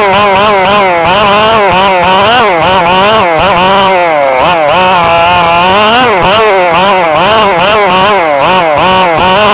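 Radio-controlled cars running on a track, their small motors revving up and down constantly with a high, buzzing whine, over a steady lower hum.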